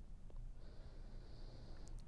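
Quiet room tone with a faint low rumble, and a soft high hiss from about half a second in until just before the end.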